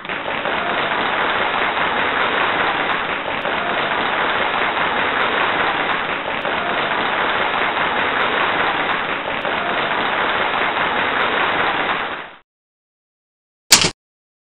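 A steady, loud hissing noise with no pitch, cut off sharply after about twelve seconds, then one short sharp sound near the end.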